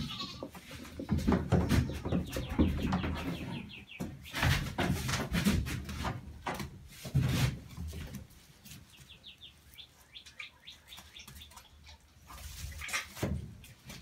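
Birds chirping, over scattered light taps and knocks of young goats' hooves on plastic steps and a bag of bedding.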